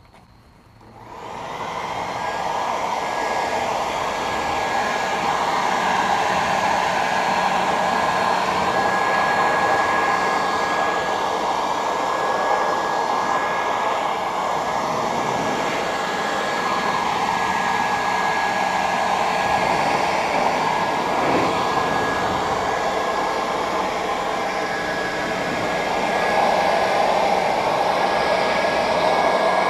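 Portland leaf blower running steadily, blowing water off a car's paint: a rush of air with a thin, steady high whine. It starts up about a second in.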